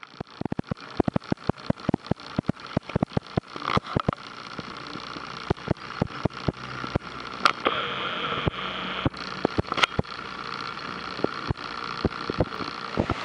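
Heavy raindrops striking a hard surface close to the microphone: irregular sharp taps, several a second, over a steady hiss of rain.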